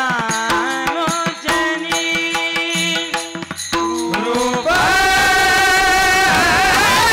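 Kirtan devotional music: a held-note melody over tabla strokes, then, about two-thirds of the way in, a voice sings a long bending line over a dense wash of cymbal-like jingling.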